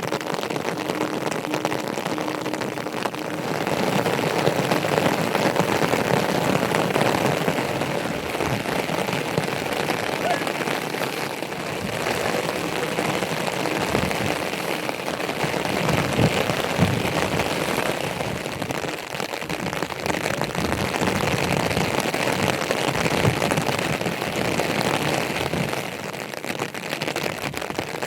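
Steady heavy rain: a dense hiss of many drops striking surfaces, holding at an even level with small swells.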